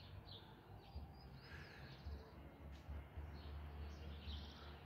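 Faint, scattered chirps and short gliding calls of small songbirds, over a low steady rumble.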